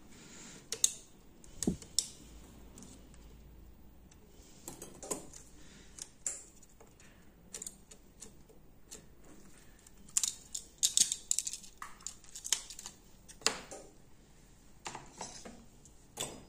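Small, scattered clicks and taps of metal tweezers and phone parts as a smartphone is taken apart on a repair mat. The parts include its internal connectors and the mainboard, which is lifted out. A quick run of clicks comes about ten to thirteen seconds in.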